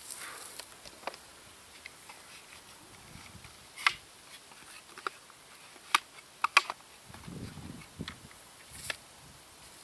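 Wooden parts of a target stand knocking and clacking as they are handled and fitted together: a few sharp knocks, with two in quick succession about two-thirds of the way through.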